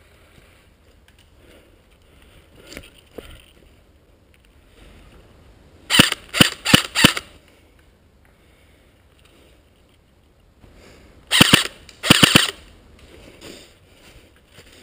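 Airsoft electric rifle firing: four single shots about a third of a second apart around six seconds in, then two short bursts a little before the end.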